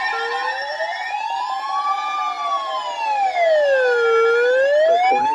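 Weather alert radio alarms sounding for a tornado warning. A slow siren wail rises and falls about once every four seconds, with steady alert tones under it in the first half.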